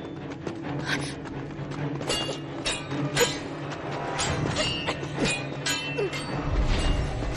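Sword-fight sound effects: a rapid series of metallic blade clashes and swishes, some of them ringing briefly, over a low sustained music drone.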